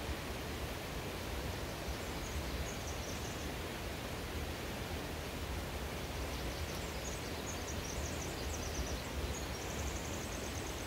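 Steady rushing noise of a nearby forest stream, with a small bird chirping faintly and high-pitched a few times, about two seconds in and again over the last four seconds.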